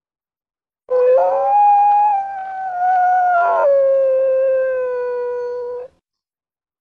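A single long canine howl that starts about a second in and rises in pitch, then drops to a lower held note about three and a half seconds in and cuts off abruptly.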